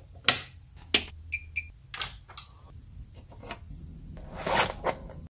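A string of sharp clicks, the first from the rocker power switch of a Weller WES51 soldering station being flipped on. Two short high electronic beeps come about a second and a half in, and a brief noisy rustle near the end.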